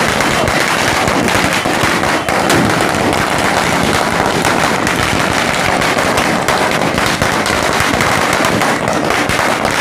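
Firecrackers bursting on the ground in a rapid, unbroken crackle of loud bangs.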